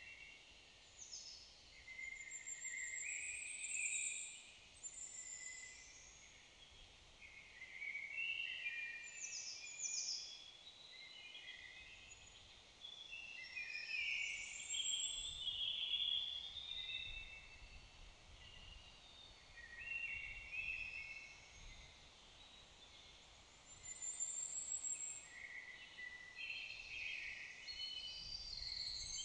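Several songbirds singing: high chirps, warbles and trills in short phrases that overlap, with brief pauses between them.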